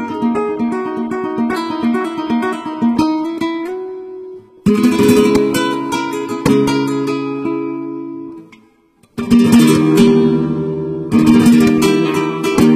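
Solo nylon-string classical guitar: a quick run of picked notes, then loud strummed chords left to ring, with a short break before the last chords.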